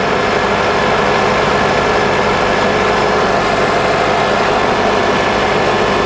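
A 2003 Honda Accord's 2.4-litre four-cylinder engine running steadily at idle, heard up close in the engine bay, with a freshly replaced alternator turning on it.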